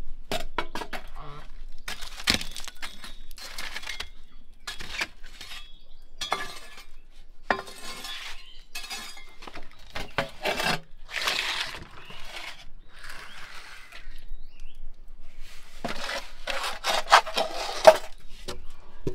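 A metal baking tray clinks and scrapes against the brick floor and glowing embers of a wood-fired oven as it is slid in, with charcoal clattering. The clatter comes in irregular bursts, loudest near the end.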